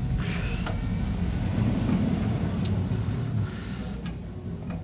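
Small single-cylinder diesel engine of a concrete mixer running with a steady low chugging rumble, with a few light metallic clicks.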